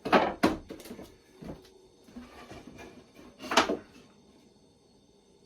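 Half-inch plywood nuc box parts and clamps knocking and clattering as they are handled and fitted together, with a cluster of sharp knocks at the start and the loudest knock about three and a half seconds in.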